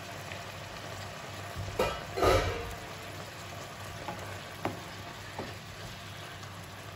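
Beef and red bell pepper strips sizzling in a wok while being stirred with a wooden spoon. A louder stretch of stirring comes about two seconds in, and the spoon knocks lightly against the pan a few times.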